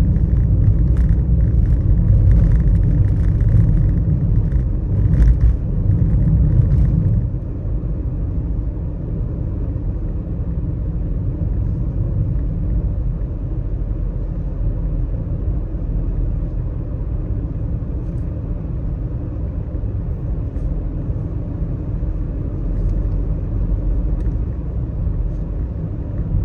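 Car driving on a wet road in the rain: a steady low road and tyre rumble. For the first seven seconds or so a hiss and scattered ticks ride on top, then the sound turns smoother and a little quieter.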